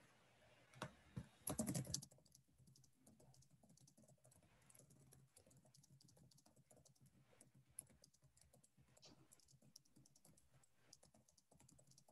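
Faint typing on a computer keyboard: a few louder key clicks in the first two seconds, then a run of light, irregular keystrokes.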